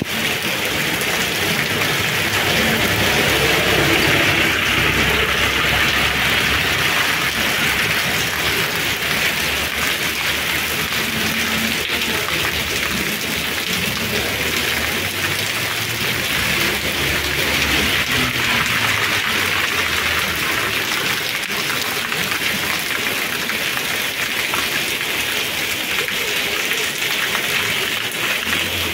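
Rain falling steadily on a wet paved street.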